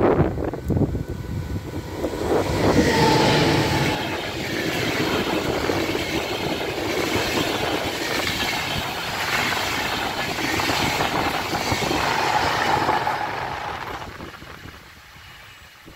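An Intercity passenger train with an electric locomotive at each end passes close by: a steady rush of coaches with a rhythmic clatter of wheels over the rail joints. It fades away over the last couple of seconds as the rear locomotive recedes.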